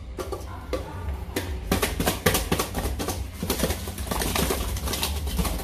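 Seasoned salmon fins shaken hard in a lidded aluminium pot, rattling and knocking against the metal in quick, irregular bursts over a steady low hum.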